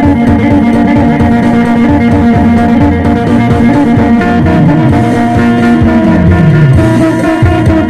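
Electric phin, the Isan three-string lute, played amplified: a plucked melody over steady ringing drone notes. A low note slides down in pitch about six seconds in.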